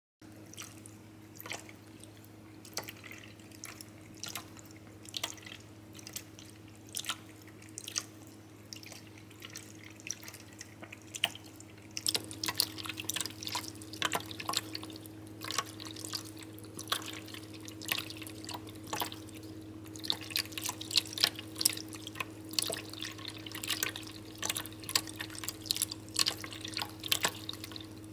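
Cat lapping water from the stream of an electric pet water fountain: quick wet clicks of the tongue over the fountain's steady pump hum and running water. The lapping grows louder and quicker a little before halfway and again later on.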